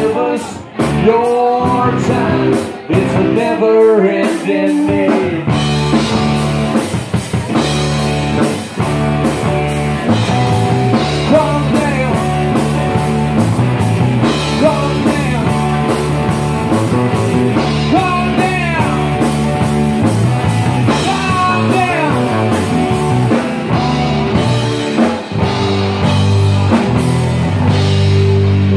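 Live rock band playing electric guitar, electric bass and drum kit, with sharp stop-start hits over the first few seconds, then a steady full-band groove.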